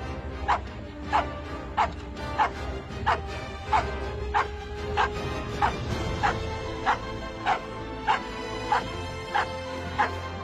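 A dog barking over and over in a steady rhythm, about one and a half barks a second, with music playing underneath.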